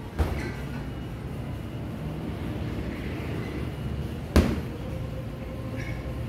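Strikes landing on a hanging heavy punching bag: two sharp smacks, one just after the start and a louder one a little over four seconds in, over a steady background rumble.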